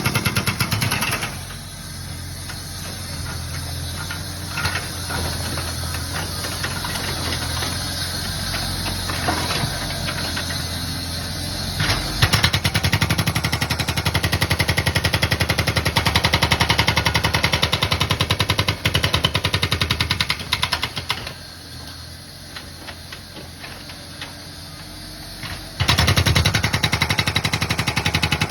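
An excavator's engine running, with a hydraulic breaker hammering concrete in rapid strokes. The hammering starts about twelve seconds in, stops for several seconds, and starts again near the end.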